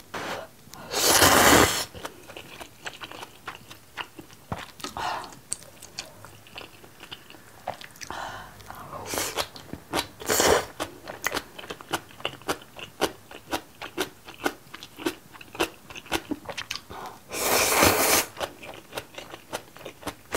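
Close-miked slurping and chewing of spicy seafood jjamppong instant ramen noodles. Two long loud slurps, about a second in and near the end, with many short wet chewing clicks between.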